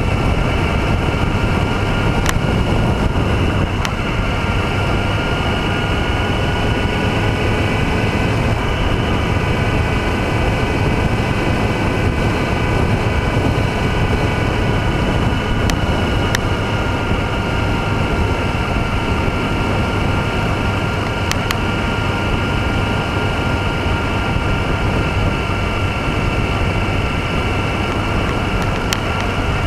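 Motorcycle engine running at a steady cruising speed, heard with wind and road noise, with a few brief clicks now and then.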